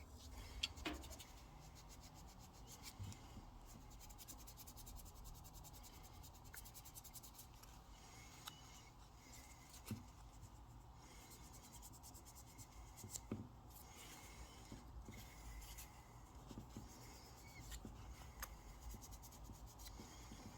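Faint rubbing and scratching of small handwork, with a few light clicks.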